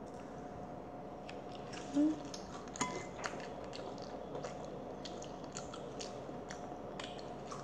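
Close-up chewing and biting of fried puri bread with kimchi and ketchup: many small, crisp clicks of the bite being chewed, with a short low hum about two seconds in.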